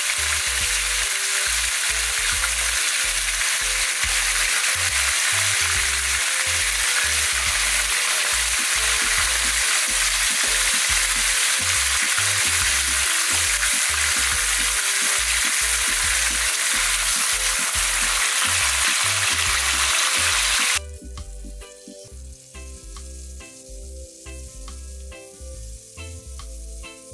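Fish frying in hot oil in a non-stick pan: a steady, loud sizzle. About 21 seconds in it cuts off suddenly to a much quieter stretch with faint sizzling and light background music.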